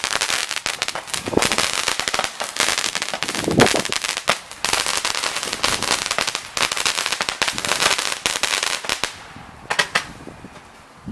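Fireworks crackling: a dense, rapid run of small bangs that stops about nine seconds in, followed by a few scattered pops.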